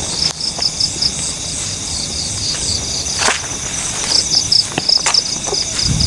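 Night insects, crickets or similar, chirping in a steady run of about five high pulses a second over a constant high trill. A few sharp clicks break in, the loudest about three seconds in.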